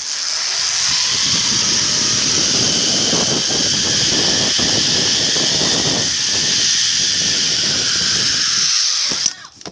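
Zip-line trolley pulley running along a steel cable: a loud, steady, high-pitched whirring hiss over rough wind noise on the microphone. It cuts off suddenly about nine seconds in as the ride reaches the platform.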